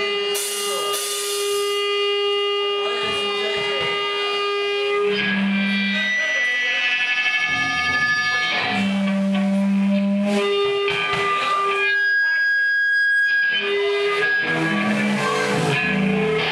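Live rock band's distorted electric guitar holding long ringing notes, with bass guitar notes coming in about five seconds in; near the end a single high held tone sounds on its own for a moment before the band comes back in.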